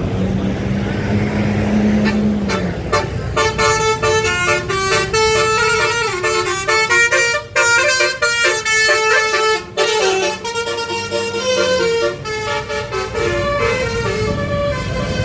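A low steady tone sounds first; then, about three seconds in, a bus's basuri telolet horn plays a quick multi-note melody of tones changing pitch in short steps, lasting about eleven seconds.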